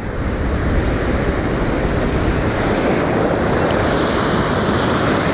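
Ocean surf breaking and washing up a sandy beach, a steady loud wash of water noise, with wind rumbling on the microphone.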